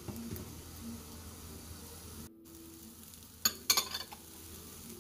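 Chopped garlic dry-roasting in a hot nonstick frying pan with a faint steady sizzle. About three and a half seconds in, chopped green chillies are tipped in from a bowl and land with a short patter of clicks.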